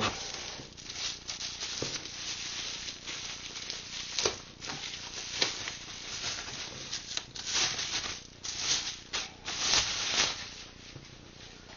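Rustling and scraping of a laserdisc box set and its packaging being handled, with irregular sharper crinkles and knocks, dying down near the end.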